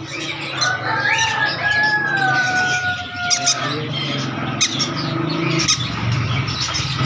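Caged birds chirping and squawking, with a steady low background hum. About half a second in, a long pitched tone starts, falls slightly, and runs for about three seconds.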